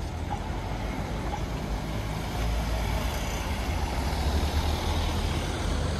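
City street traffic: a motor vehicle's low engine rumble that grows louder about halfway through as it comes close.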